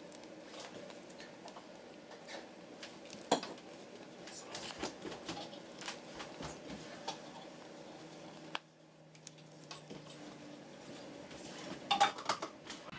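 Kitchen clatter: scattered light clinks and knocks of dishes and utensils over a steady hum. The hum drops away about two-thirds of the way through. There is a sharper knock about three seconds in and a couple of louder knocks near the end.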